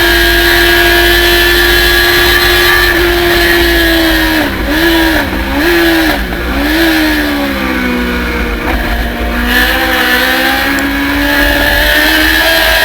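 Thunder Roadster race car engine heard onboard: held at high revs, then braking with three quick downshifts about four to six seconds in, each a dip and rebound in pitch, running lower through a corner, then revs rising again as it accelerates out.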